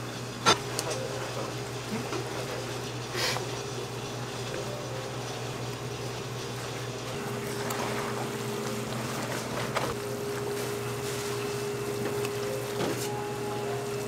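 Commercial kitchen working sounds: a steady hum with a few sharp clicks and clinks, and a steady tone that comes in about seven seconds in.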